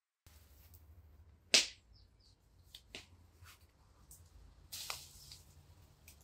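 A few sharp clicks or taps over a faint background: a loud one about a second and a half in, a fainter one near three seconds, and a short rustling scrape near five seconds.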